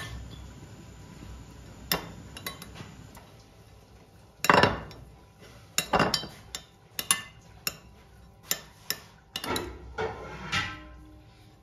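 Metal spoon clinking and scraping against a glass bowl while mashing boiled egg yolks: irregular taps and short scrapes, only a few at first, then coming thick and fast from about halfway.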